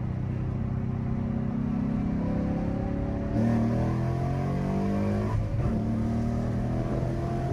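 2018 Ford Mustang GT's 5.0-litre V8, running an E85 tune, accelerating hard as heard from inside the cabin: the engine note climbs in pitch, then drops and climbs again at upshifts about halfway and three-quarters through.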